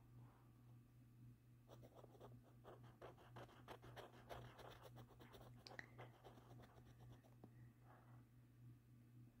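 Faint scratching of strokes drawn on paper, busiest in the middle stretch, over a steady low hum.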